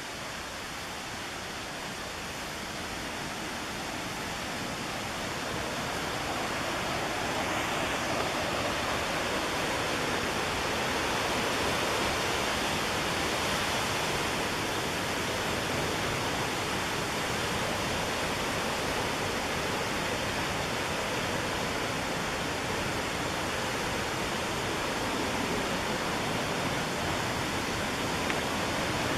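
Rushing whitewater of the McKenzie River, a steady roar that grows louder over the first several seconds and then holds even.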